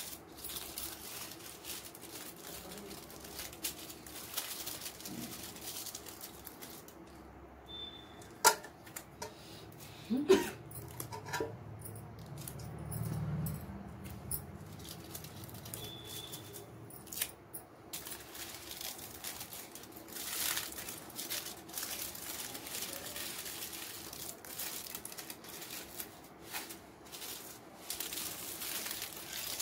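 Aluminium foil crinkling and rustling in irregular bursts as it is folded and pressed around a cardboard cake board, with two sharp taps about eight and ten seconds in.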